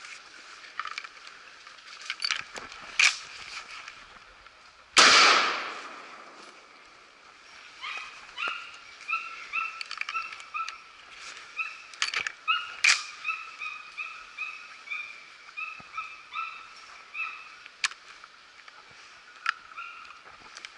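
A single gunshot at a wild boar about five seconds in, dying away over about a second. It is followed by a long run of short, repeated calls, about two a second.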